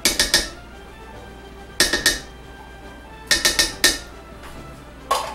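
Sharp metallic clinks in four quick groups, about a dozen in all, each with a short ring, as a spatula works tomato paste out of a can into a stainless steel stockpot.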